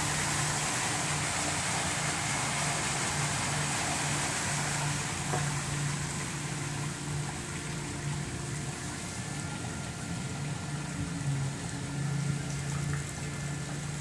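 Rock waterfall splashing into a swimming pool over a low hum; the splashing thins out about halfway through as the waterfall is switched off by remote.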